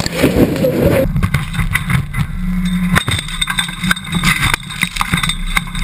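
A car blown apart in a fireball: a dense crackling blast with flying debris, cut off abruptly about a second in. Then a low vehicle rumble with scattered sharp clattering knocks.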